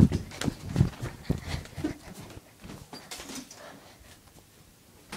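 Handling noise on a phone's microphone: a run of irregular thumps and rubbing as the phone is moved about, thinning out after about two seconds to a few faint scrapes.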